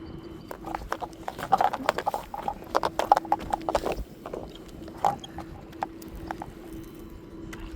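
A run of irregular knocks and clicks, thickest in the first four seconds and sparser after, over a faint steady hum.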